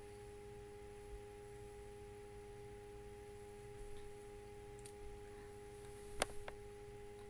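Faint steady hum of constant pitch with higher overtones, over low background hiss. Two small clicks come a little after six seconds in.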